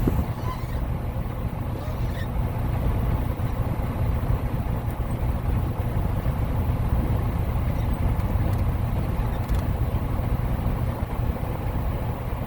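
Diesel engine of a Freightliner Cascadia semi truck idling steadily, a low, even hum heard from inside the cab, with a few faint clicks.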